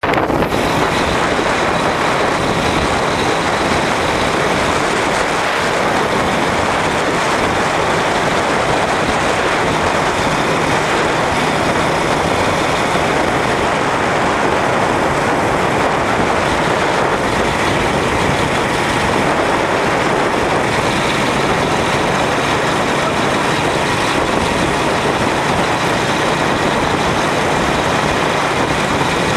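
Steady engine hum with road and wind noise from a motor vehicle moving at cycling speed.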